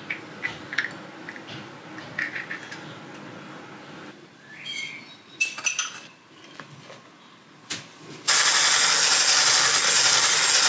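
Light clicks and taps of eggs being cracked and separated over a glass bowl, then about eight seconds in an electric hand mixer starts up and runs steadily and loudly, beating egg yolks with sugar and cocoa.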